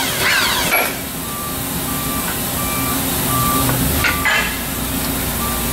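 A vehicle reversing alarm beeps steadily at one pitch, about once every three quarters of a second, from about a second in, over a low machine hum. A metal clank sounds about four seconds in.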